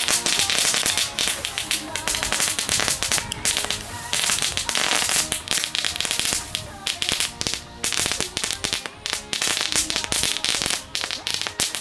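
Several Lesli Machine Gun Crackers, small F1 crackling tubes, going off together as a dense, fast string of sharp little bangs, with a few brief lulls.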